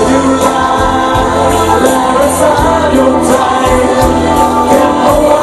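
Live Thai pop music through a stage PA: male singers singing into handheld microphones over loud amplified backing music, part of a song medley.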